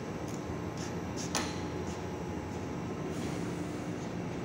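Carpet emboss printing machine running with a steady hum, with a few light ticks and one sharper click about a second and a half in.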